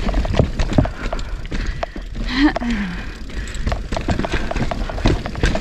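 Mountain bike clattering over a rocky trail: a dense run of knocks and rattles from tyres, chain and frame, over a steady wind rumble on the camera's microphone.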